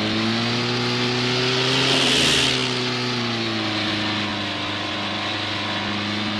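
Light propeller aircraft's piston engine droning; its pitch rises slightly to about two seconds in, with a brief rush of air, then slowly falls.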